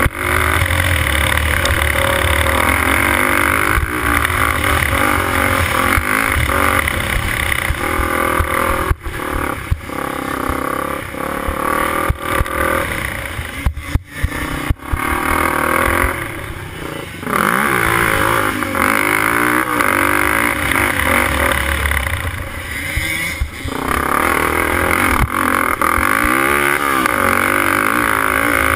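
Racing sport quad's engine running hard, its pitch rising and falling as the rider works the throttle and gears, heard from a helmet camera with wind rush over the microphone. The sound dips briefly a few times midway, as the throttle is chopped.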